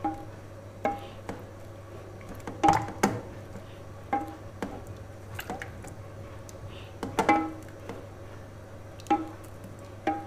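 Wooden madhani (churner) mashing cooked peaches in a steel saucepan: irregular knocks of wood against the metal pan, each with a short ringing tone, about a dozen over ten seconds. A steady low hum runs underneath.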